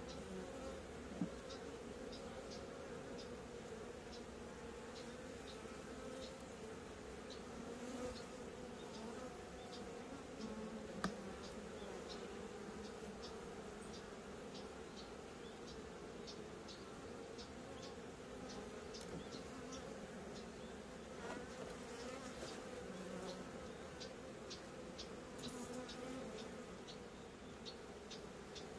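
Honeybees buzzing around their hive in a steady low hum, with faint scattered high ticks and a couple of sharper clicks.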